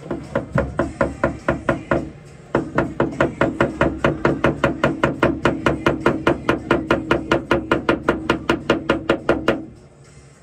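Rapid, even knocking, about five strokes a second, over a steady hum. A short run of strokes is followed by a brief break, then a longer run that stops near the end.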